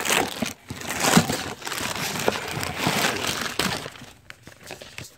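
Plastic mailer bag crinkling and rustling as it is handled inside a cardboard box, with a few sharp knocks among it. It dies down to a few faint clicks near the end.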